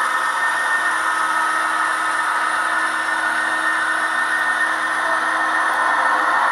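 Gauge 1 model of an SBB BDe 4/4 electric railcar with its coaches running past: a steady whir from its motor and gearing, with metal wheels rolling along the rails.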